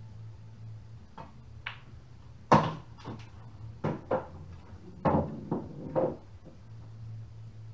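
A pool shot: a cue strikes the cue ball, followed by the sharp clicks of pool balls hitting each other and the cushions. There are about half a dozen knocks over several seconds, and the loudest comes about two and a half seconds in.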